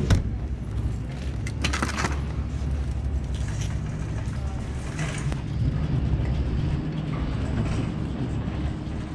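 Wire shopping cart being pushed over a hard store floor: a steady low rolling rumble with light rattles. A sharp knock comes right at the start and a clatter about two seconds in.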